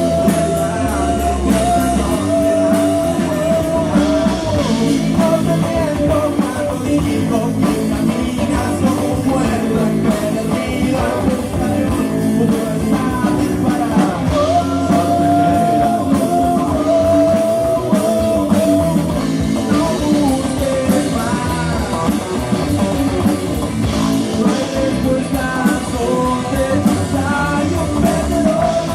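A rock band playing, with electric guitar and a drum kit under a lead melody of long held notes.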